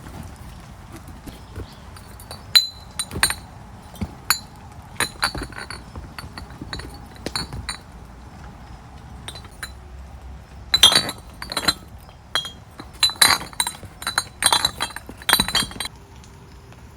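Irregular clinks and taps of small hard objects knocking together, with a brief ringing to some of them, like metal or glass being handled; the clinking comes thickest in two clusters in the second half.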